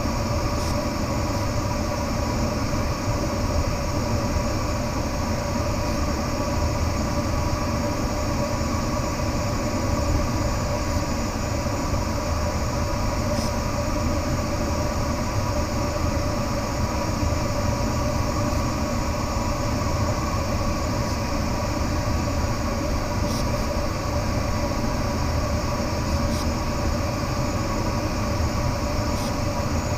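Steady rush of air over a glider in flight, heard from inside the cockpit: an even, unbroken rumble with a faint steady whine and a few light ticks.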